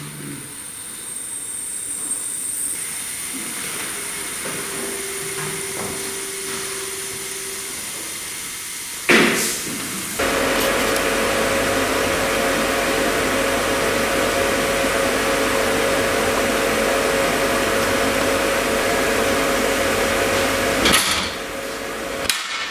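Woodworking workshop machinery: a sharp knock about nine seconds in, then a loud steady machine noise with a low hum comes in abruptly and runs for about ten seconds before changing near the end.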